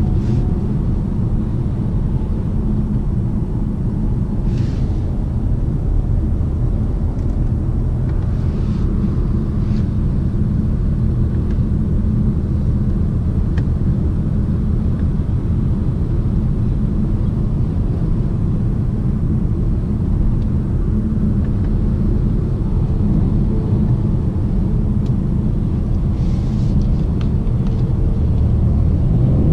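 Cabin sound of a BMW 750d xDrive, with its 3.0-litre quad-turbo straight-six diesel, cruising at steady motorway speed. A steady low rumble of tyre and road noise blends with the engine's drone, and a few faint whooshes come and go.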